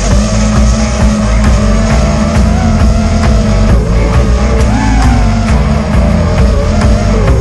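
Loud rock music with a heavy, pulsing bass.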